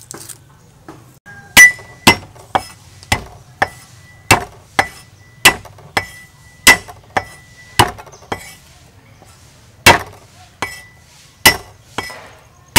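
A large kitchen knife chopping garlic cloves on a thick wooden chopping block: sharp chops about two a second, starting about a second and a half in, with a short pause near the end. Many chops leave a brief metallic ring from the blade.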